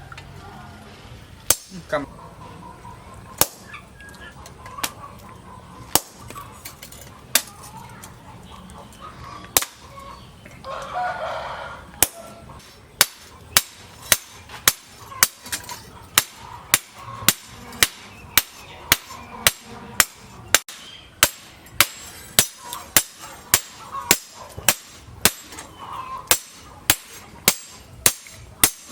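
Hammer striking a steel leaf-spring blank on an anvil while it is forged: single blows a second or two apart at first, then a steady run of about two blows a second. A brief call-like sound cuts in about a third of the way through.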